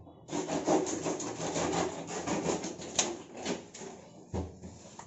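Live catfish flopping and scraping on a concrete floor, with a sharp knock about three seconds in. It grows quieter near the end, as the fish lie still.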